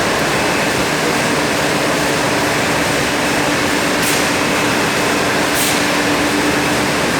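30-litre vacuum cleaner running steadily: a loud, even rush of air with a steady hum under it. Two brief hissing swells come about four seconds in and again a second and a half later.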